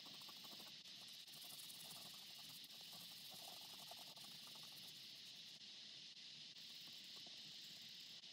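Near silence: a steady faint hiss of room tone.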